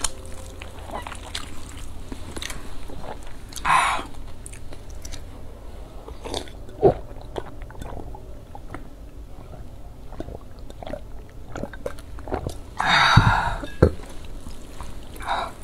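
Close-miked eating of wide flat noodles: steady chewing with many small wet mouth clicks. Two louder slurps stand out, one about four seconds in and one near the end.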